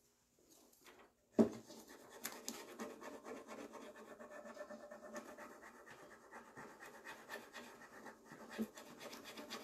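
Rub-on decor transfer being rubbed down onto a painted wooden drawer front through its clear plastic backing sheet: a steady, scratchy rubbing and rustling. A single sharp knock comes about a second and a half in, before the rubbing starts.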